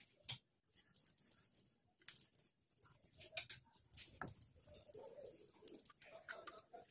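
Faint crackling of a pat of butter starting to melt in a hot non-stick frying pan, with a spatula spreading it. A bird calls softly in the background with low, repeated notes.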